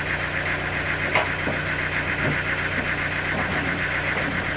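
An engine idling steadily, with a fast, even pulse to its sound. There is a brief sharp tick about a second in.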